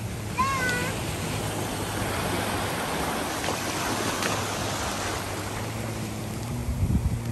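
Surf washing onto the beach with wind on the microphone, over a steady low motor drone from jet skis and a towing boat offshore. A short high call cuts in about half a second in.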